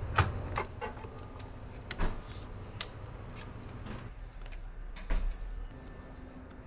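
A series of sharp clicks and knocks, most of them in the first three seconds and one more about five seconds in, over a low background hum.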